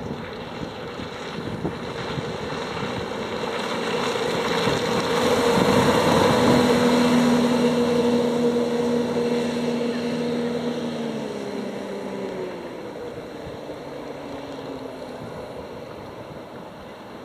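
A 70 hp outboard motor on a small cabin runabout runs at speed as the boat passes close by, with the rush of its hull and wake on the water. The engine grows louder to a peak about six seconds in, then drops a little in pitch and fades as the boat moves away.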